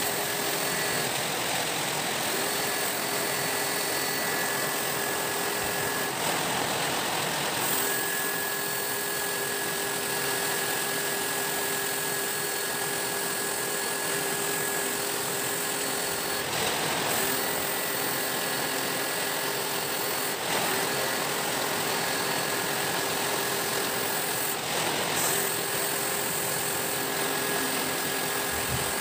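Pressure washer running while it sprays a window air conditioner's evaporator coil, with the hiss of the water jet. The pump's steady hum stops briefly and starts again about five times.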